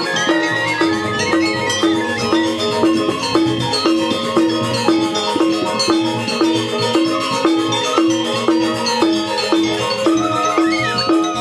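Balinese gamelan angklung ensemble playing in kebyar style: bronze metallophones struck with mallets ring over a steady beat of about two strokes a second, with bamboo suling flutes carrying a wavering melody on top.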